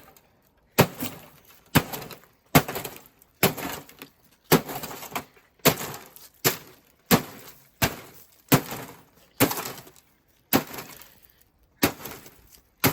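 Repeated hard blows on a TV screen, about one a second, a dozen or so strikes, with breaking glass as the screen is knocked loose.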